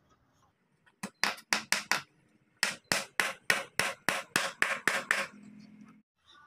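Claw hammer nailing a timber brace into a wooden table frame: two runs of quick blows, about six in the first and about fifteen in the second, at roughly six strikes a second with a short pause between.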